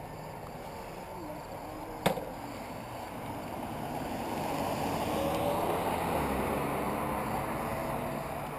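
Faint voices of people talking over a steady outdoor rush. A single sharp click comes about two seconds in, and a broad rushing noise swells through the second half.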